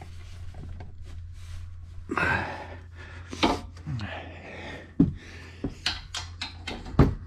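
A mechanic shifting around beside a car's front wheel and handling hand tools: rustling movement, then several sharp metal clanks and knocks, the loudest about five and seven seconds in, over a steady low hum.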